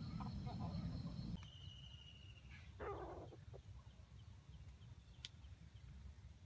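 Forest ambience of chirring insects, with a low rumble that cuts off abruptly just over a second in. A single short animal call sounds about three seconds in.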